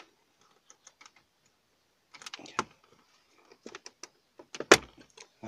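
Chevrolet Aveo plastic dashboard trim bezel being pulled free by hand: scattered small plastic clicks and creaks, with one loud sharp snap about three-quarters of the way through as its retaining clips let go.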